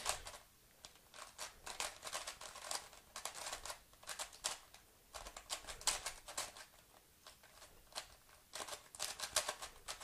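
YJ Guanlong 3x3 speed cube being turned by hand: a run of quick, irregular plastic clicks and clacks as the layers snap round. The cube is new and unlubricated, so it turns very dry and tight.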